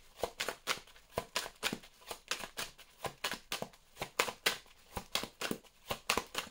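A thick deck of oracle cards being shuffled overhand by hand, the cards slapping and riffling against each other in a quick, even run of about five strokes a second.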